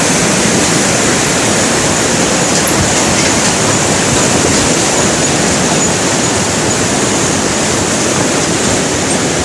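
Fast mountain river below the Kapuzbaşı waterfalls rushing in a loud, steady, unbroken torrent of white water.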